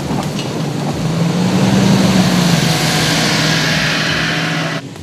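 Toyota Land Cruiser V8 engine pulling hard up a steep dirt slope, its tyres churning and spraying loose soil. The engine note strengthens about a second in, and the sound cuts off suddenly near the end.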